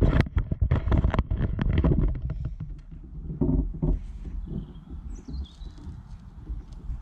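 Wind buffeting the microphone in uneven low rumbles, with rustling and knocks from clothing and camera handling, busiest in the first two seconds.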